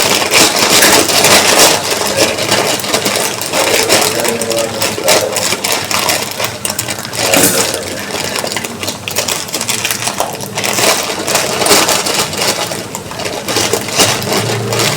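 Hot oil sizzling and crackling loudly in a pan, a dense spitting crackle that starts suddenly and keeps fluctuating.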